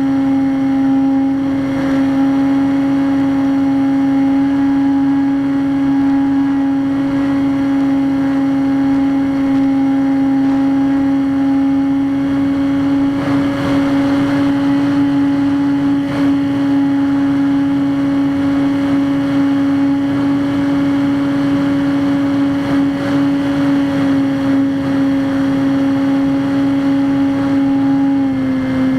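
Skywalker X5 flying wing's electric motor and propeller running at steady throttle in flight: a constant buzzing whine over wind rush, dropping slightly in pitch near the end.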